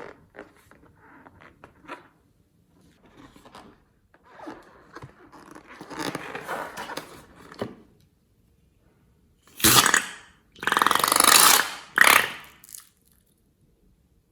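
Slime being squeezed and stretched by hand close to the microphone: soft crackling and squishing, then three loud squelching bursts near the end.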